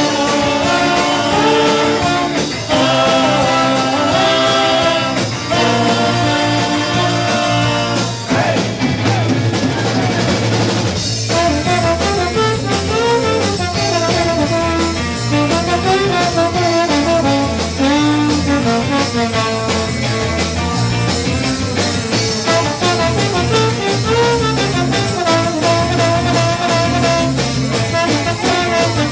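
Live 1960s-style band playing, a trombone out front over electric guitars. About eleven seconds in the music changes from blocks of held chords to a winding melody line.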